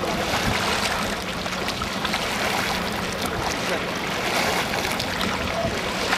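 Wind on the microphone and water lapping and splashing on a lake, a steady rushing noise, with a low steady hum underneath from about half a second in.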